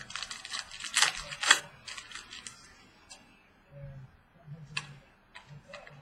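Trading cards being handled and flipped through: a dense run of rustles and sharp clicks over the first two and a half seconds, then a few isolated clicks.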